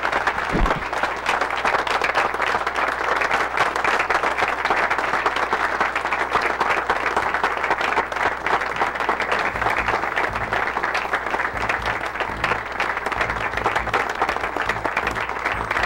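Sustained applause from a roomful of people clapping, steady throughout.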